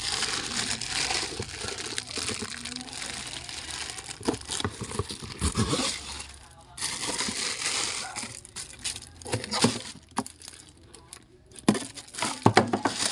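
Plastic packaging crinkling and rustling as it is handled and opened, with a pause about six seconds in, then a few sharp knocks and clicks near the end.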